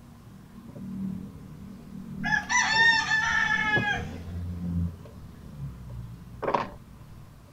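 A rooster crowing once, a stepped, pitched call a little under two seconds long starting about two seconds in, over a low hum. A brief sharp sound follows near the end.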